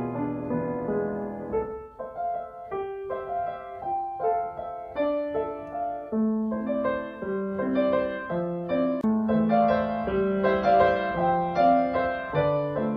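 Background piano music, slow sustained chords and a melody played on a keyboard.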